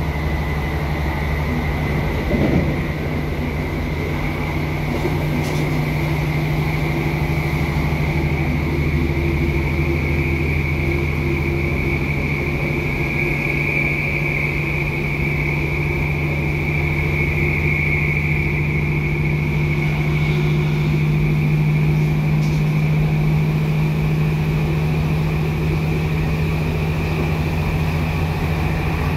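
Onboard a British Rail Class 150 Sprinter diesel multiple unit: its underfloor Cummins turbo-diesel and Voith hydraulic transmission running steadily, a low drone with a high whine over it. A brief knock about two and a half seconds in.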